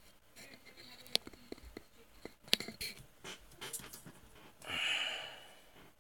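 Close handling noise of the camera being set in place: a string of small clicks and knocks. About five seconds in comes a loud breathy rush, like an exhale right at the microphone.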